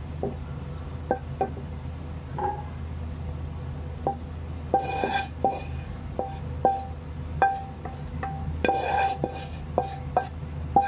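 A cooking utensil knocking and scraping against a non-stick frying pan as fried beef liver is pushed out onto a plate: a string of sharp knocks, each ringing briefly, with scraping about halfway through and again near the end.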